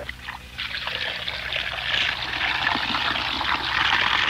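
Liquid pouring and splashing: a steady rushing hiss that starts about half a second in.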